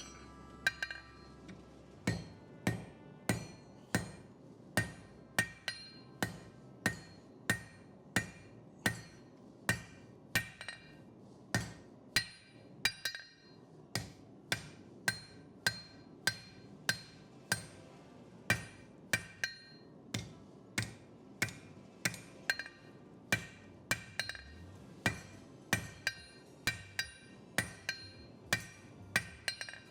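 Hand hammer striking a hot W2 steel knife blank on an anvil in an even rhythm of about two blows a second, each blow followed by a short metallic ring; this is the anvil work that shapes the knife's tip. The hammering pauses briefly about midway, then carries on.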